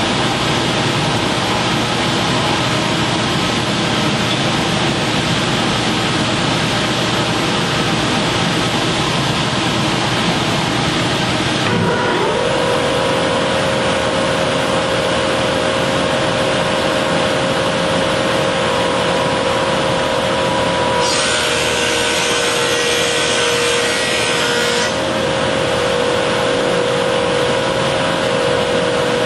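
Woodworking planer running loud and steady, with a whine that sets in a little before halfway. Past the middle, a rougher cutting noise lasts about four seconds as a board passes through the cutter head.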